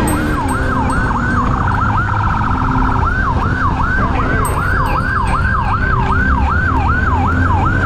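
Police siren in yelp mode, rising and falling about two and a half times a second, switching to a faster warble for about a second near two seconds in. A steady low vehicle rumble runs underneath.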